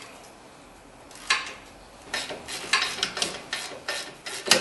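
Metal clicks and clinks of a wrench working the 17 mm caliper bracket bolts on a front brake hub. There is one sharp clack about a second in, then a quick irregular run of clicks, the loudest near the end.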